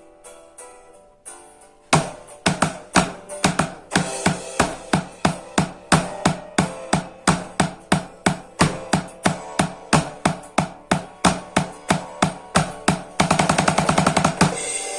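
Soft plucked notes, then from about two seconds in a drum kit keeps a steady beat of roughly three to four strokes a second, with melodic backing under it. Near the end the beat gives way to a fast drum roll.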